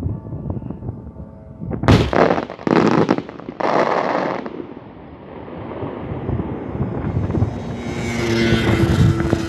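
Fireworks going off: three loud bangs about two, three and four seconds in, then a growing hiss and crackle toward the end.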